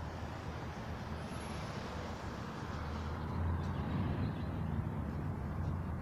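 Low, steady rumble of road traffic, growing louder about halfway through as a vehicle passes.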